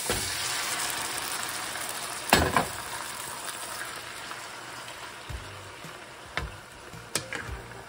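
Raw squid sizzling in a hot oiled frying pan with onions and tomatoes as it is tipped in, with a loud knock about two seconds in. The sizzle slowly dies down as a wooden spatula stirs, knocking against the pan a few times near the end.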